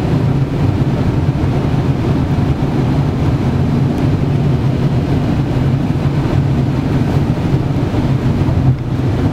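Steady low drone of a car's engine and tyres on the road, heard from inside the cabin while driving at speed.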